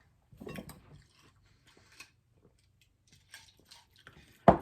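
Close-up chewing and crunching of a hard taco shell, with a louder bite about half a second in and small crunches after. Near the end comes one short, sharp, loud thump.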